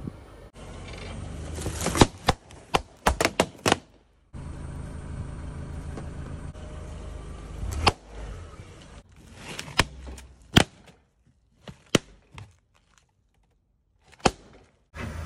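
Sharp cracks and pops from objects and balloons being crushed. A quick cluster of cracks comes about two to four seconds in. A car tyre rumbles over the asphalt, with one loud burst near eight seconds. Single balloon pops follow about a second apart, with quiet gaps between.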